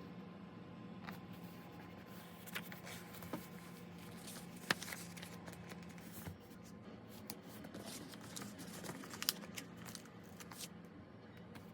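Paper and stickers being handled on a journal page: scattered light taps, small rustles and crinkles, with one sharper tick a little before halfway, over a faint steady hum.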